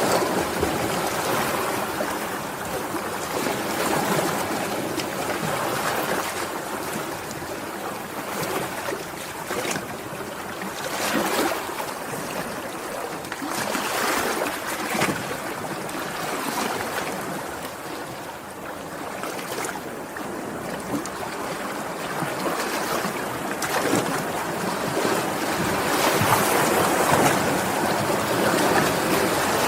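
Sea waves washing and breaking, a steady rush of water that swells and eases every few seconds, with brief splashes.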